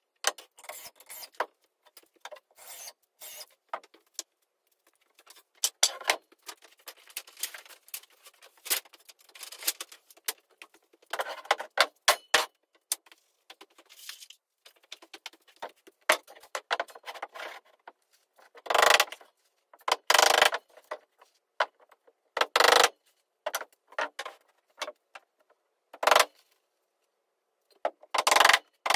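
Carpentry work on a timber wall frame: a stop-start run of short clatters, scrapes and knocks of wood and tools, broken by brief silences. Louder single bangs come about five times in the second half.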